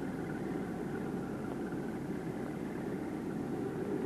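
Steady distant drone of aircraft engines under the hiss of an old film soundtrack.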